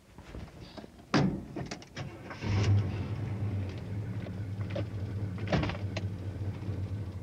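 Late-1970s Chevrolet Camaro Z28's V8 engine started up after a fresh oil change: a sharp knock about a second in, then the engine catches and settles into a steady idle, with another knock near the end.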